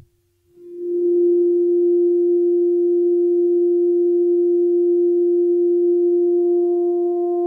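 A musical pitch with its overtones filtered out, leaving only the fundamental: a steady, nearly pure sine-like tone that swells in within the first second and then holds.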